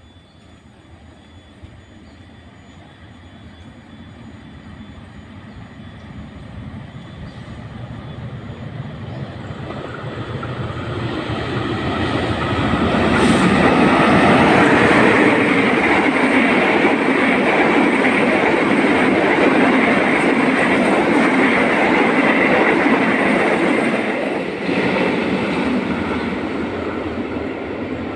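A CC 206 diesel-electric locomotive hauling a rake of stainless steel passenger coaches approaches and passes. Its engine and wheels on the rails grow steadily louder over about twelve seconds. The coaches then roll by in a long steady rumble that eases off suddenly about three seconds before the end.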